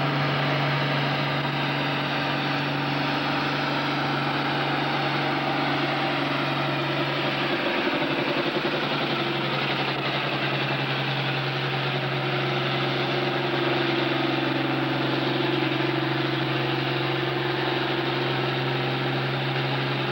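Farm tractor's diesel engine running flat out as it drags a weight-transfer pulling sled, a loud steady drone whose pitch drops slightly about eight seconds in as the engine is loaded down.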